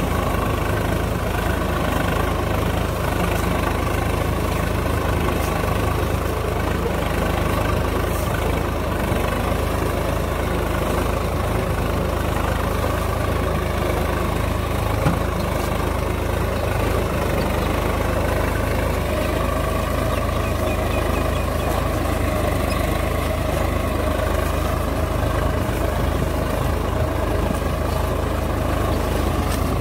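Swaraj 855 FE tractor's three-cylinder diesel engine running steadily under load while pulling a disc plough through the soil.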